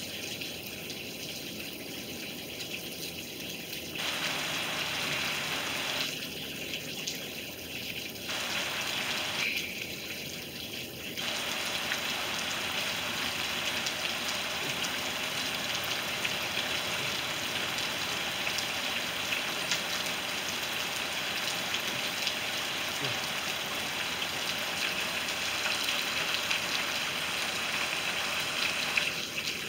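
Rain falling, a steady hiss. A louder, brighter hiss cuts in abruptly twice early on, then again about a third of the way in and holds until just before the end.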